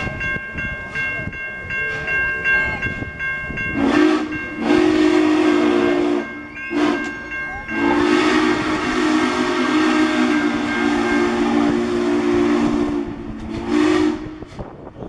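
N&W Class J 611 steam locomotive's steam whistle blowing over a loud hiss of steam as the engine arrives. First come a few short blasts, then one long blast of several seconds and a last short toot near the end. Before the whistle, for the first few seconds, a higher steady ringing tone is heard.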